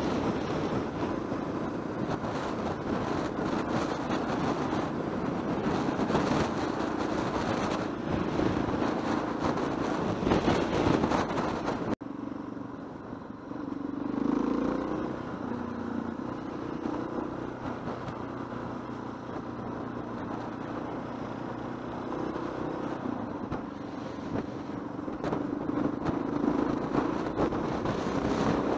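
Yamaha XT600E single-cylinder motorcycle engine running steadily under way, with wind and road noise over it. About twelve seconds in, the sound changes abruptly to a quieter stretch where the engine is heard more plainly.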